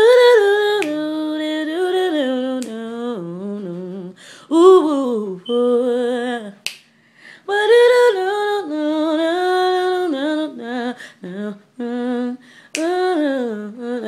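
A woman singing a cappella, wordless runs and long held notes that slide up and down between pitches, broken by short breaths. A few sharp clicks fall in the gaps between phrases.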